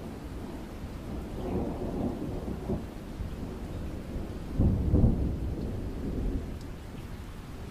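Thunderstorm: steady rain with rolling thunder, the loudest rumble coming about two-thirds of the way through and easing off near the end.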